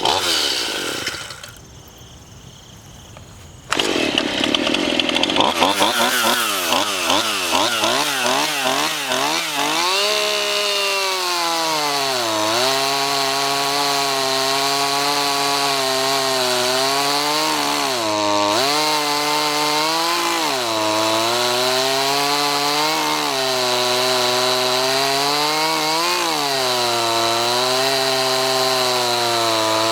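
Stihl MS171 31.8 cc two-stroke chainsaw running at high revs while cutting through wood. Its pitch dips briefly several times as the chain loads up in the cut, then recovers. A short quieter break comes about two seconds in, before the saw comes back in loud.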